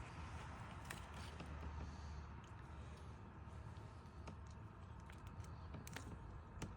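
Faint, scattered short clicks, about six spread over several seconds, above a low steady background hum.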